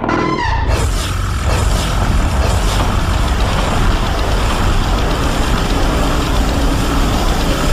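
Sound effect made for a three-headed kaiju creature: a brief falling screech at the start, then a loud, deep, steady noise that holds for several seconds.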